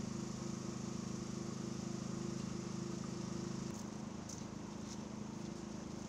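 A low, steady engine hum that stops abruptly about two-thirds of the way through. After it, a faint outdoor hiss remains, with a few light ticks.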